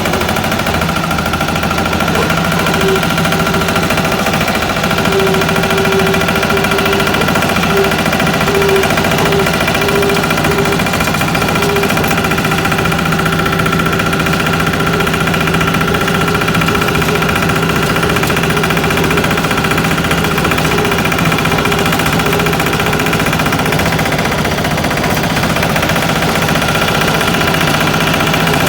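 Single-cylinder 'patpat' diesel engine running steadily with a rapid knocking beat, its speed holding even throughout.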